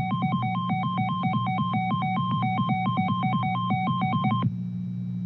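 Electronic alert tone switching rapidly back and forth between two pitches, several times a second, over a steady low hum, introducing an Emergency Alert System weather warning. The warbling stops about four and a half seconds in, leaving only the hum.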